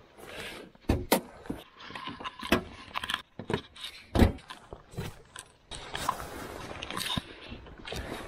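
Scattered clicks, knocks and rustling of someone handling things in and around a car with its doors open, with the loudest knock about four seconds in. A steady hiss runs through the last couple of seconds.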